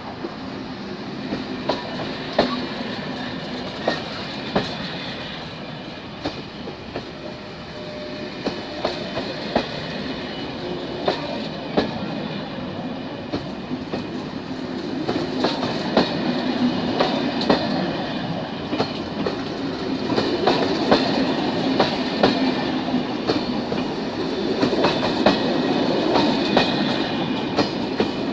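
Corail passenger train hauled by a BB22200 electric locomotive rolling along the track, with a steady rumble and many sharp clicks of wheels over rail joints. It grows louder over the second half.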